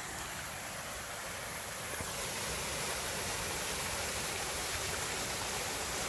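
Small woodland waterfall and its stream rushing with a steady hiss, running full after heavy rain; it grows a little louder about two seconds in.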